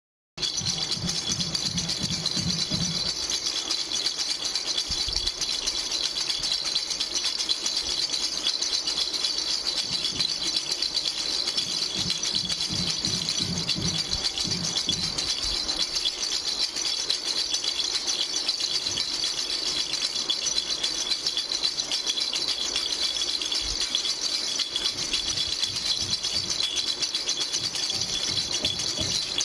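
Green flower-shaped baby rattle shaken continuously: a dense, fast, unbroken rattling of small pieces inside it, with a few soft low knocks from handling.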